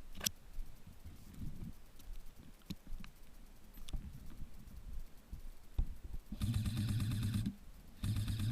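Scattered footsteps and gear rustle, then two buzzing bursts of an airsoft electric gun on full auto, each about a second long, near the end.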